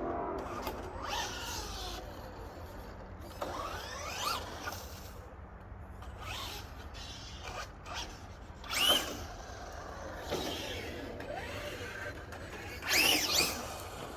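Traxxas Drag Slash RC truck's brushless electric motor whining up and down in short bursts of acceleration, loudest twice, about nine and thirteen seconds in.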